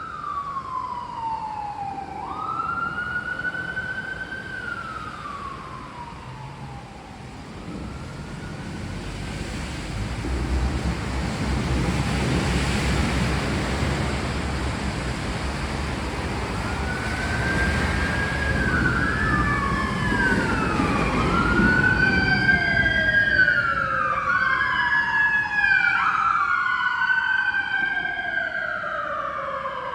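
Sirens wailing, each call sliding slowly down in pitch and then jumping back up. One siren sounds at first and fades; from about halfway through several overlap. In between, a low rumble swells and dies away.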